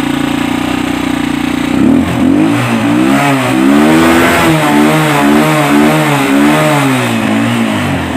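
Small motorcycle engine idling steadily, then revved up and down in quick throttle blips over and over for about six seconds, and settling back to idle near the end. The engine is now running after a hard-starting fix: the spark plug was cleaned and petrol put into the cylinder.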